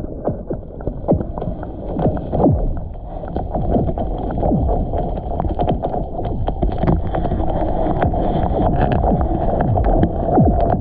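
Strong wind buffeting the microphone: a loud, uneven low rumble with irregular gusts throughout.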